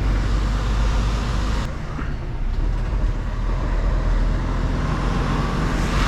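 Mercedes-Benz Actros L truck's diesel engine running steadily under way, with tyre and road noise. The sound eases briefly about two seconds in, and a short rush of hiss comes near the end.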